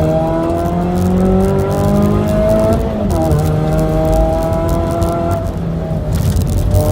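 Mazda 3's four-cylinder engine pulling hard at speed, its note climbing steadily. The pitch dips briefly about three seconds in and climbs again, and near the end the engine note drops away for about a second before coming back.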